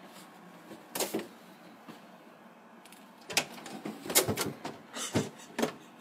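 Plastic butter tub knocking and scraping against the refrigerator's wire shelf as a rabbit pulls it down. Two quick knocks about a second in, then a run of clattering knocks from about three seconds in.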